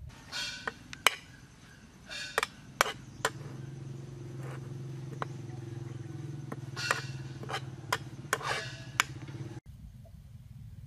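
A metal spoon clinking and scraping against a metal pan while roasting red ants with chopped spring onion are stirred: sharp irregular clinks and short scrapes, stopping abruptly near the end.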